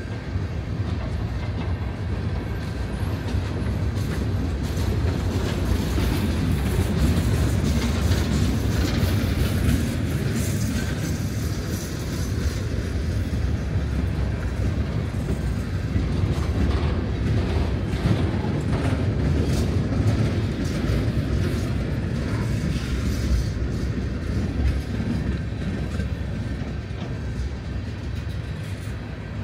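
Empty coal cars of a freight train rolling past: a steady rumble of steel wheels on the rails with frequent clicks and clanks.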